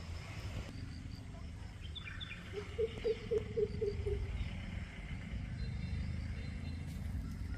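An animal calling: a short run of about six low hoots, roughly four a second, falling slightly in pitch, over a steady low rumble.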